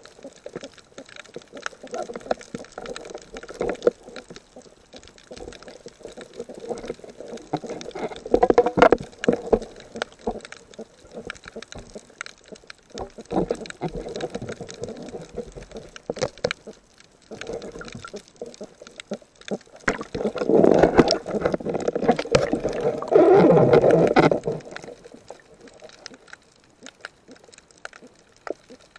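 Water sloshing and gurgling in irregular surges, with scattered small clicks and splashes, as a snorkeler swims and dives. The loudest surges come about two-thirds of the way through.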